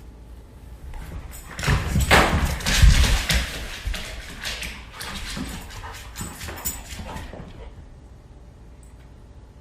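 A dog's sounds, loudest in a noisy stretch from about two to three and a half seconds in, then fading to scattered smaller sounds.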